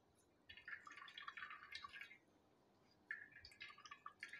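Faint dripping and trickling of almond liquid wrung from a wet cloth of ground almond paste into a steel bowl, in two spells, the first from about half a second in and the second starting about three seconds in.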